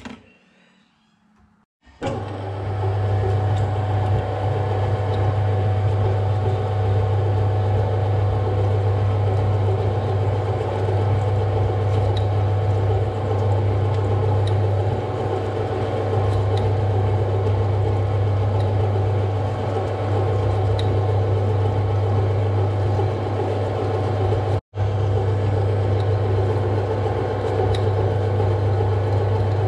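Metal lathe starting up about two seconds in and then running steadily with a strong low hum, while a twist drill in the tailstock bores a 3/8-inch hole into a metal block spinning in the four-jaw chuck. The sound cuts out for an instant near the end.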